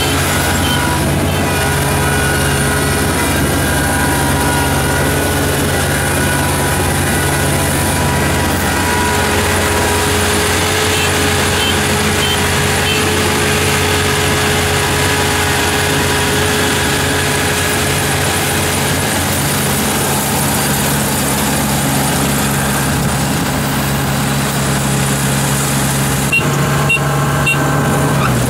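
Kubota ER447 Dynalite combine harvester's diesel engine and machinery running steadily under load as it works through the rice field. About two seconds before the end the engine note changes abruptly, then runs on steadily.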